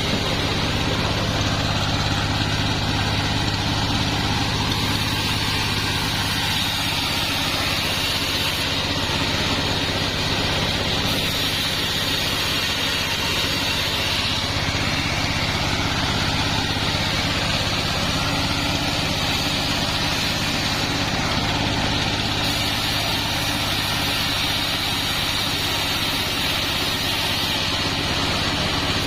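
Sawmill machinery running steadily: a low engine hum with a constant high whine from the saw.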